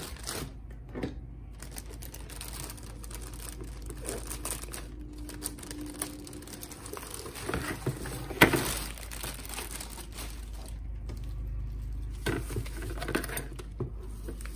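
Cardboard box and its packaging being opened and handled: rustling and crinkling with scattered small clicks, and one sharp knock about eight seconds in.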